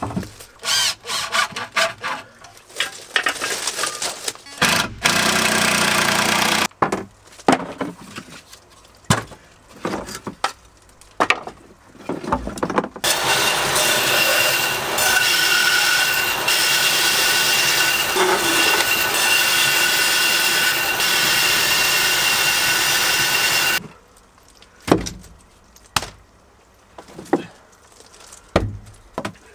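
Irregular wooden knocks and clatter of boards being fitted, with a short machine run, then a bandsaw running and cutting through a thick wood slab for about ten seconds with a steady whine. It stops suddenly and is followed by scattered clunks of wood offcuts tossed into a wooden bin.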